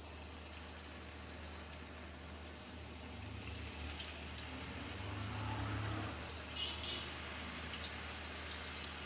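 Masala-marinated fish pieces sizzling in hot coconut oil in a pan, a steady hiss that starts suddenly and grows a little louder.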